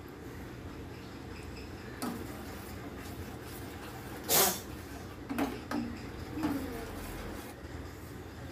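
A steel ladle stirring and scraping in a stainless steel pot of china grass (agar) melting in water, with one short loud scrape about four seconds in and a few softer knocks just after.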